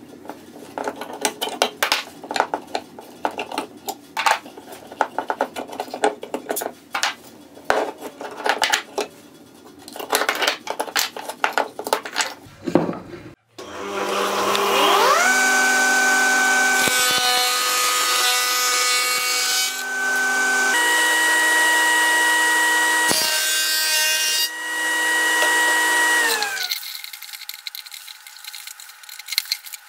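For about the first 13 seconds, trigger bar clamps click and knock as they are pumped tight around a wooden glue-up. A table saw then starts, its whine rising as the blade spins up. It runs through about 12 seconds of cutting, with rough noisy stretches as the blade goes through the wood, and falls away as it spins down. Near the end, scissors snip through paper.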